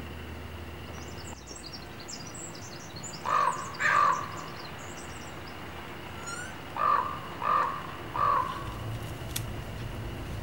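A crow cawing five times: two caws, a pause, then three more in an even row. Small birds chirp faintly and high in the background during the first half.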